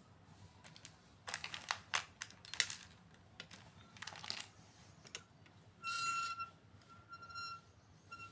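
Small hard items clicking and clacking together as they are handled, a quick run of clicks early and a few more about four seconds in. Then a short, steady, high-pitched squeak, heard again twice more faintly.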